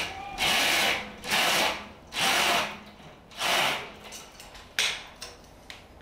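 A curtain being drawn shut in about five pulls. Each pull is a half-second rasp of the runners sliding along the rail, coming roughly once a second, followed by a few light clicks near the end.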